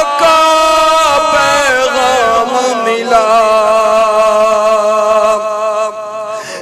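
Male voice chanting an Urdu naat melody without words, holding long steady notes, with a shift to a new held pitch about three seconds in.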